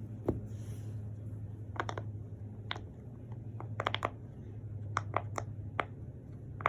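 Square silicone pop-it fidget toy being pressed, its bubbles popping as irregular soft clicks, sometimes two or three in quick succession.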